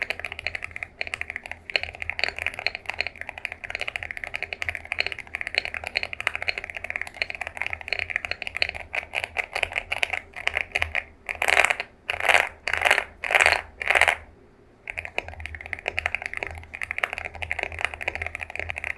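Typing on an Epomaker AULA F75 mechanical keyboard with its stock switches, a fast, even stream of key clicks. A little past halfway come five louder, longer clattering bursts, then a brief pause before steady typing resumes.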